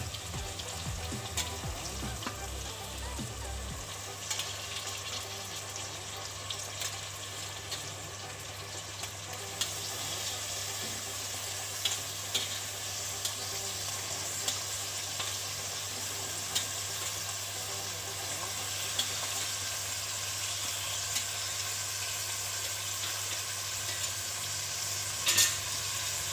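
Mutton pieces sizzling and frying in hot oil and onions over a high flame, stirred with a spoon that clicks now and then against the pot. There is a louder clatter near the end.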